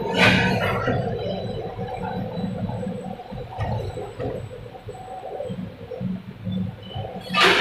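Paper-straw production machinery running: a low, uneven mechanical hum, with a brief sharp hiss just after the start and another near the end.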